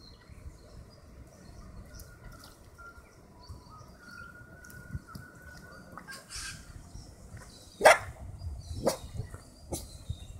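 A dog barking: three short, sharp barks starting about eight seconds in, the first the loudest.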